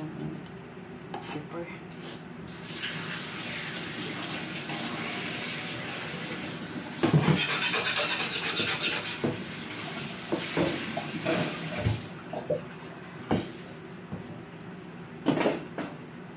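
Kitchen tap running into a stainless-steel sink while a cutting board is rinsed under it, with a sharp knock about halfway through the rinsing. The water stops after about ten seconds, followed by a few knocks and clatters at the sink.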